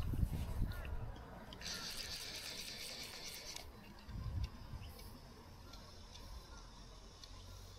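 Fly reel's click-and-pawl ratchet buzzing for about two seconds as line is wound in, starting and stopping sharply. Wind rumble and handling knocks on the microphone around it.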